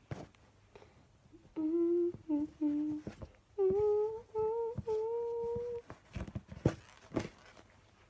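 A person humming a short tune: three lower notes, then three higher notes, the last one held longest. A few sharp clicks follow near the end.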